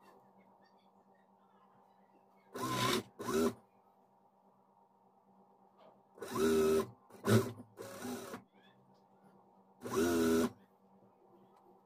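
Electric sewing machine stitching lace onto fabric in six short runs of under a second each, its motor speeding up at the start of each run, with a faint steady hum between the runs.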